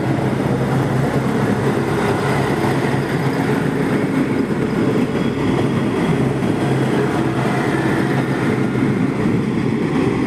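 A train running past, a steady, loud rumble and rush of its passing.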